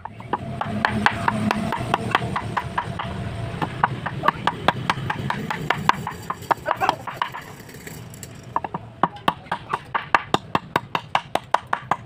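Long knife blade chopping into a green tree branch held on a wooden board, carving out a slingshot fork: a run of sharp wooden knocks a few times a second, coming faster and more evenly near the end.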